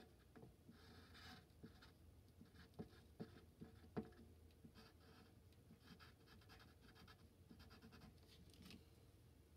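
Pencil drawing on paper: faint, short scratching strokes coming and going, with a few light, sharp taps about three to four seconds in.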